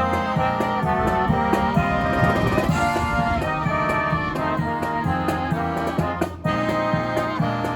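Live brass band playing an upbeat tune, with horns carrying the melody over a steady beat. There is a brief break in the music about six and a half seconds in.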